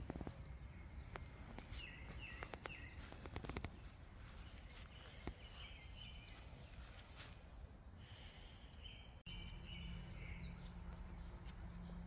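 Quiet outdoor ambience: small birds give short chirps now and then over a low rumble of wind on the microphone, with a few faint clicks in the first few seconds. From about nine seconds in, a faint steady low hum joins.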